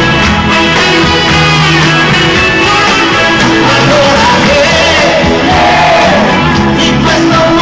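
Live pop-rock band playing a song, with a male lead vocal over the band. Heard from among the audience of a large outdoor concert.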